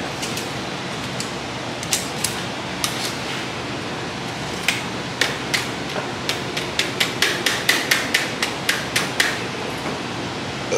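Hammer blows on thick sheet steel: a few separate strikes, then a quick run of about a dozen and a half blows at roughly four a second, over a steady background hiss.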